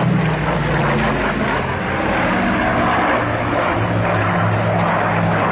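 Grumman F7F Tigercat's twin Pratt & Whitney R-2800 radial engines running at display power, a steady propeller drone whose low engine note shifts in pitch as the plane flies past.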